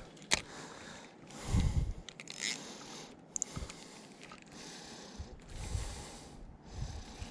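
Mitchell Avocet II spinning reel being cranked in short spells while retrieving a lure, giving a soft rasping whir. There is a sharp click near the start and a low thump about a second and a half in.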